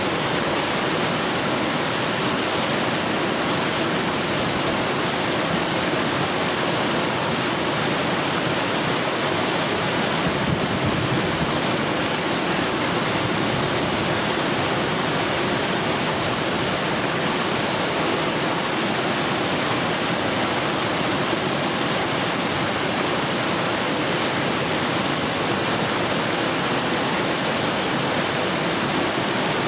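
The flooding South Platte River rushing in whitewater rapids over a completely submerged water break: a steady, unbroken roar of churning water.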